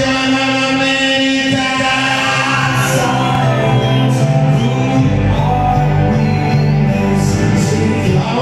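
Loud recorded music with singing played over a sonidero sound system, with held sung notes over a steady bass line.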